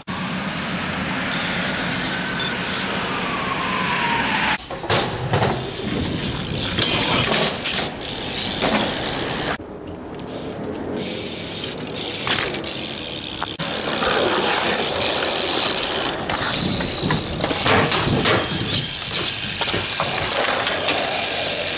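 BMX bikes riding on concrete: tyres rolling, the freewheel hub clicking, and sudden knocks and clatters of landings and grinds, in several short clips cut one after another.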